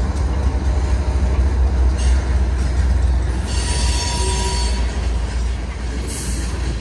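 Freight train rolling past close by: the deep steady rumble of the diesel locomotive and boxcars on the rails. Around the middle, wheels squeal high for a second or two.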